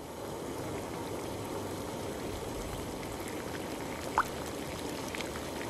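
Cartoon sound effect of liquid bubbling and fizzing steadily in a lab flask, with one short rising drip 'plink' from the dropper about four seconds in.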